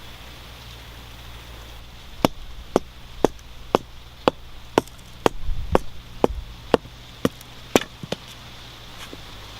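A blade chopping in a steady rhythm, about two sharp strokes a second, a dozen or so in all. The strokes start about two seconds in and stop near the end.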